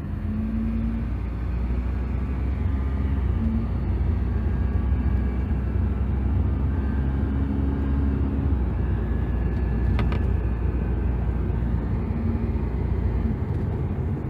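2012 Hyundai Genesis Coupe 2.0T's turbocharged four-cylinder engine running cold: a steady low rumble with a faint whine from the driver's side of the engine bay, a whine that comes only while the engine is below working temperature. A single click about ten seconds in.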